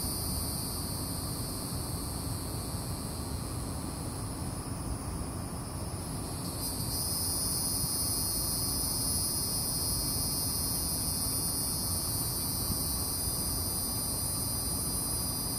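Steady high-pitched insect chorus of crickets or similar summer insects, which thins out for a couple of seconds and comes back sharply about seven seconds in, over a low background rumble.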